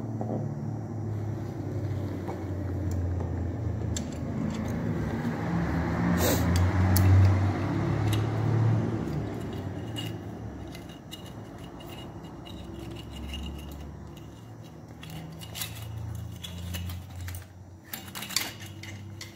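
Metal engine parts clinking and scraping as rocker-arm pieces are handled and fitted into a motorcycle cylinder head. Scattered sharp clicks, a cluster about six seconds in and more near the end, over a low hum.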